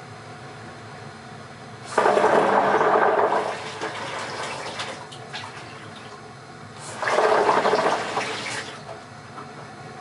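Whirlpool water heater clunking and rushing as water is drawn, twice: each burst starts suddenly with knocks, runs loud for about a second and a half, then trails off. It does this whenever a hot or cold tap is turned on.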